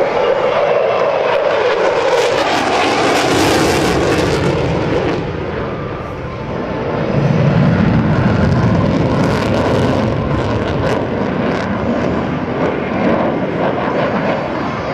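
Jet noise of an F-16 Fighting Falcon flying a demonstration pass overhead, a loud continuous rushing rumble that dips briefly about six seconds in and then swells again with a deeper rumble.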